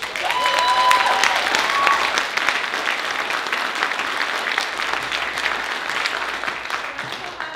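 Audience applauding, clapping that starts suddenly and fades near the end, with a short high cheer near the start.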